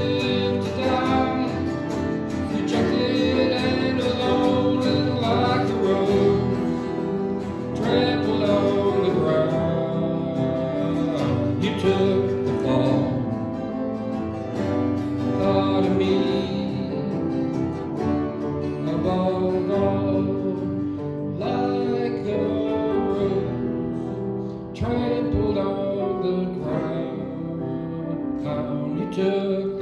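A man singing to his own acoustic guitar accompaniment.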